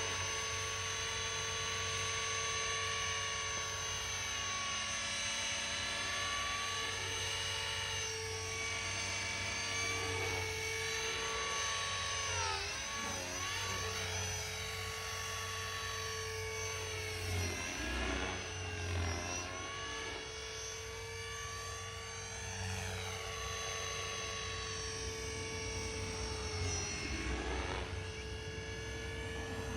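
GAUI X3 electric RC helicopter flying, its motor, gears and rotor making a steady high whine. The pitch swings up and down several times.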